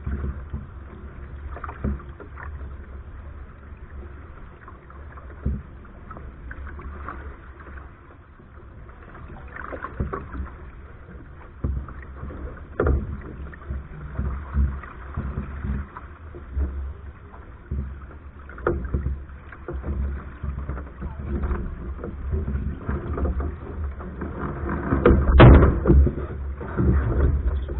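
Water rushing and splashing along the hull of a Soling keelboat under sail, in irregular surges, with wind rumbling on the deck-mounted camera's microphone. A louder knock and splash come near the end.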